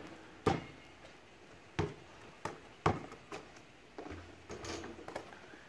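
A basketball in play: a run of sharp knocks as the ball hits the backboard and rim and bounces on the blacktop, about five in the first three and a half seconds, then fainter.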